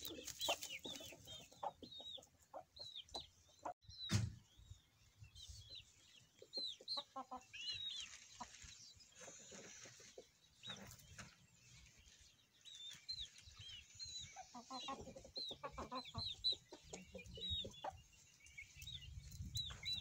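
Chickens clucking in short bursts, with many short high chirps throughout. A single sharp knock comes about four seconds in.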